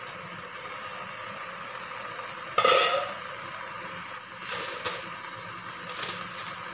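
A glass steamer lid is lifted off the pot with one short clatter about two and a half seconds in, over a steady hiss. Later, aluminium foil crinkles briefly as it is peeled back off the covered dish.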